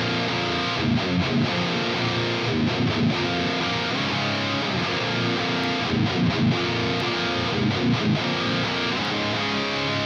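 Electric guitar riffing through a Bogner Snorkler 50 amp head with a driven tone: held chords with short flurries of quick muted notes about a second in, around three seconds, around six seconds and around eight seconds.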